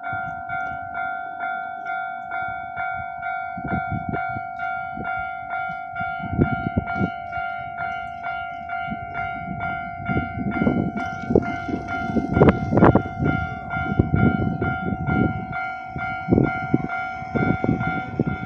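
Japanese railway level-crossing alarm ringing, a steady repeating ding at about two to three strokes a second, meaning a train is approaching. A train's wheels knock over the rail joints as it passes, loudest about twelve seconds in.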